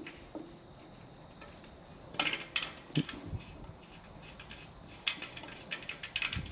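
Light metallic clinks and rattles from a metal air tube and its brass fitting being handled and fitted into place on an air compressor. The clinks come in short clusters about two seconds in and again from about five seconds.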